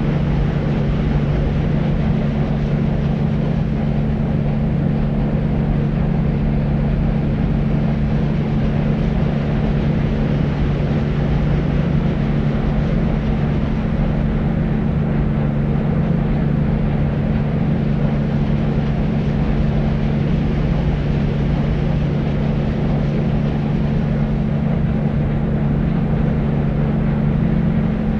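Deep white noise for sleep: a steady, dark rumbling hiss with a low hum in it, unchanging.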